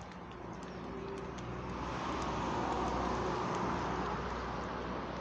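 A car driving past on the road: tyre and engine noise swells to its loudest about three seconds in, then eases off a little.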